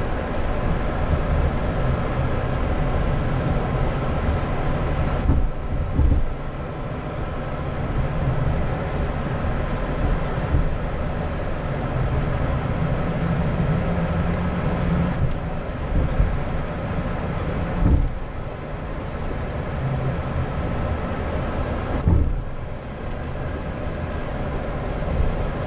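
Steady rumble and hum inside a Boeing 737-800 flight deck while it taxis at idle thrust, with a few short thumps as it rolls.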